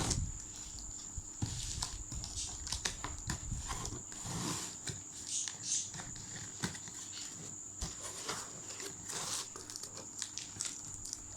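A parcel being opened by hand: irregular rustling, crinkling and tapping of the packaging, with small clicks scattered throughout.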